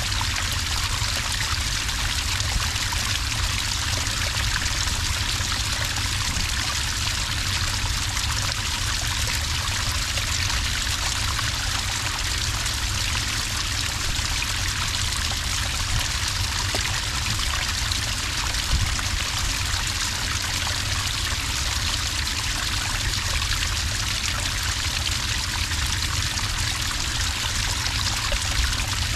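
Small cascade of water pouring steadily onto sand: a continuous splashing trickle with a low rumble underneath.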